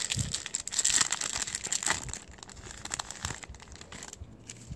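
Foil wrapper of a Star Trek CCG booster pack crinkling and tearing as the pack is handled and opened. The crackling is densest and loudest for the first two seconds, then thins to light rustles and clicks.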